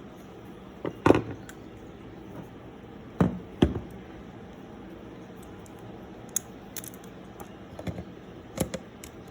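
Handling noise of a Canon F-1 camera being taken out of its leather case: a series of scattered knocks and clicks. The loudest comes about a second in, with two more close together about three and a half seconds in and a few lighter ones near the end.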